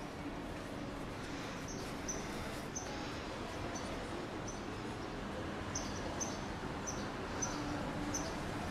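A small bird chirping repeatedly in short, high notes over a steady wash of outdoor neighbourhood background noise.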